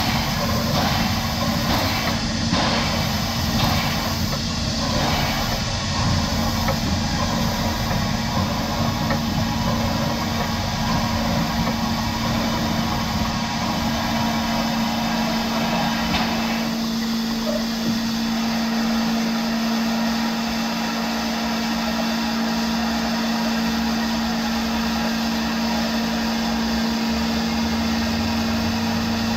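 Steam locomotive No. 92.2271, a 1919 Krauss tank engine, running slowly along the track: steady running noise with a constant hum and a regular beat in the first few seconds. About halfway through the sound thins out as the train slows toward a level crossing.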